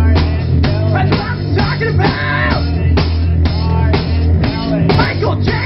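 Rock song playing: drum kit keeping a steady beat of about two hits a second under bass and guitar.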